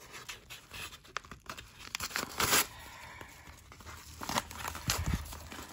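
Yellow padded mailer being torn open by hand: irregular paper tearing and crinkling, with the loudest rip about two and a half seconds in.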